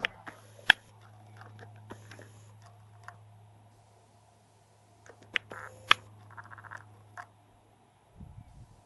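Handling noise on the camera: a steady low hum with several sharp clicks and knocks, two of them loud, and short whirring stretches while the lens zooms in.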